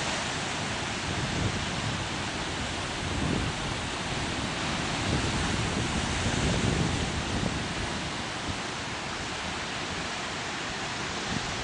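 Atlantic Ocean surf as a steady rushing noise, swelling slightly in the middle, with wind buffeting the microphone in low rumbling gusts.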